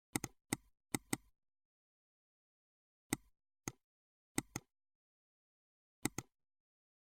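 Short, sharp clicks from a computer's input controls, several in quick pairs, in a few clusters separated by dead silence.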